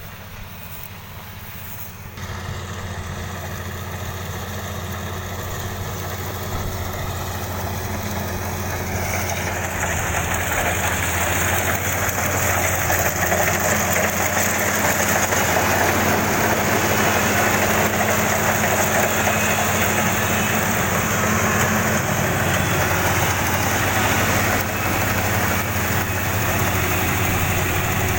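Kubota DC-35 combine harvester's diesel engine running. It picks up sharply about two seconds in, grows steadily louder over the next ten seconds, then runs at a steady level.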